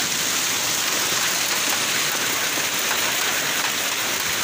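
Heavy rain mixed with hail pelting a wet concrete yard, a steady dense hiss.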